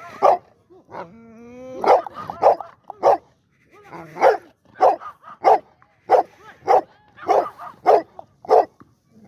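Large pit bull-type dog barking over and over, about a dozen barks at roughly one every half second, with a short whine about a second in.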